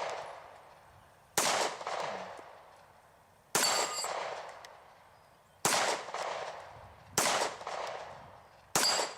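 Kahr CW9 9mm double-action-only pistol fired slowly five times, each shot about one and a half to two seconds apart and trailing off in a long echo.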